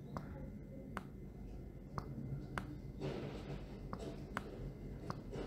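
Computer mouse button clicking irregularly, about one or two sharp clicks a second, as handwriting strokes are drawn with the mouse, with a soft rustling from about three seconds in, over a low steady hum.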